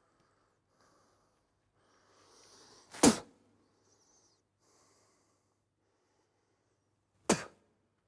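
Two loud single drum strikes from a live drum kit, about four seconds apart, each with a quick drop in pitch and a short decay. A soft rising rush of breath or brushed sound leads into the first strike.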